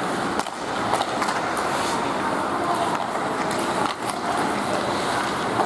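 Ice hockey game sound: skates scraping and carving on the ice under a steady arena noise, with a few sharp clacks of sticks on the puck.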